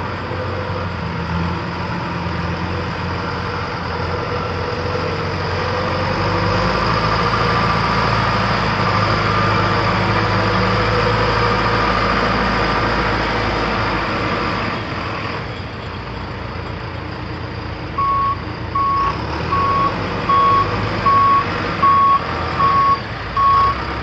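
John Deere 310SE backhoe's four-cylinder diesel engine running, louder for several seconds in the middle before easing back. In the last few seconds a backup alarm sounds a steady series of beeps, a little more than one a second, the sign that the machine is in reverse.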